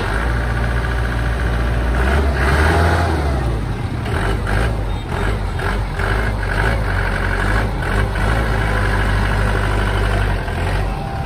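Shibaura V52 tractor's engine running steadily.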